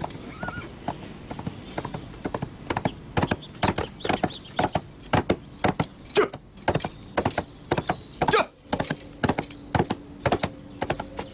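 Hoofbeats of a ridden horse coming at a run, a quick irregular patter of hoof strikes that grows louder over the first few seconds.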